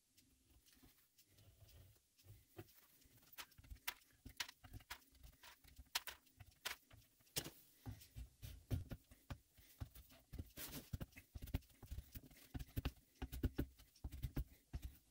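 Faint, irregular taps and clicks of wooden dowels being pushed into glued holes and melamine-faced chipboard panels being handled, coming more thickly in the second half.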